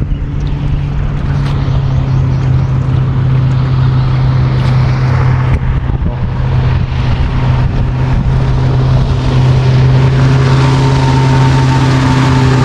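Boat motor running steadily with a low, even drone, getting a little louder near the end.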